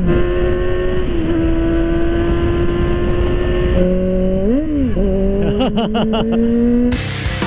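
Kawasaki ZX-25R 250 cc inline-four with an Arrow exhaust, running at a high, steady pitch, then revved up and down. The pitch rises again, with a few sharp pops from the exhaust. Music cuts in near the end.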